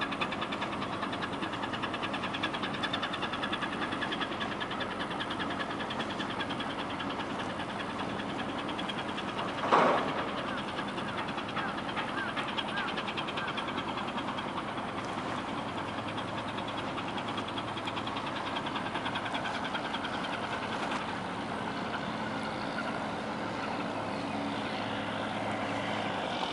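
An engine running steadily, with a single loud knock just under ten seconds in.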